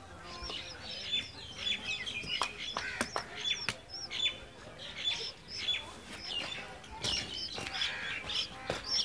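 Small birds chirping in many short, high, repeated calls, with a few sharp claps or wing flaps among them.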